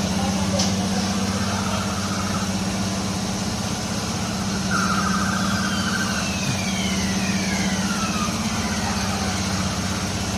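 Amusement ride machinery running with a steady low hum, joined about five seconds in by a short buzzing tone and then a few faint falling whistles.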